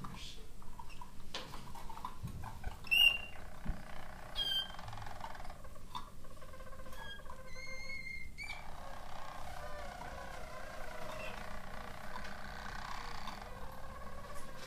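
Harz roller canaries singing their soft, rolling song: a near-continuous low warble, with a few clear, held whistled notes rising above it.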